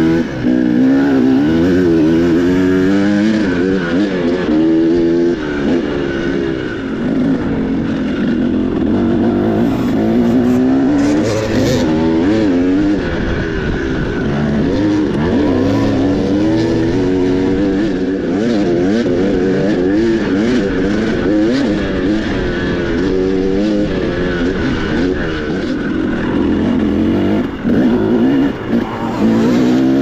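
Dirt bike engine running hard, its pitch climbing and dropping again and again as the throttle is opened and closed.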